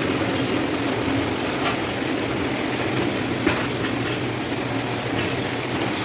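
Citrus sorting machine running: a steady mechanical rattle with a few sharper knocks scattered through it.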